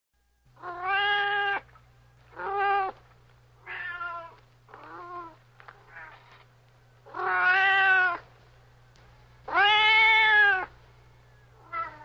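Domestic cat meowing repeatedly: about eight meows, the loudest drawn out to about a second, with shorter, quieter ones between them and a brief one near the end.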